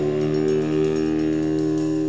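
Live band music: a held chord with guitar ringing steadily, no singing.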